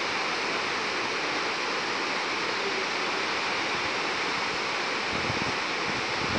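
Neelum River rapids rushing over rocks: a steady, even hiss of fast whitewater.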